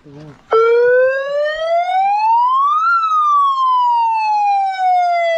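Police-style wailing siren: it starts abruptly about half a second in, rises in pitch for about two and a half seconds, then falls slowly.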